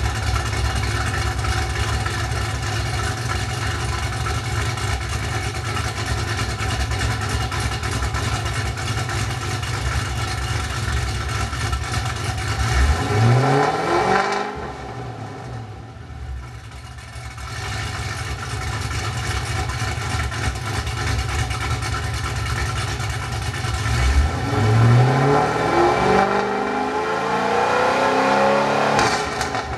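Exhaust of a 2008 Ford Mustang with a big aftermarket camshaft, idling with a lumpy thumping. The engine is revved about 13 seconds in and settles back. From about 24 seconds in it is revved again several times, dropping back to idle near the end.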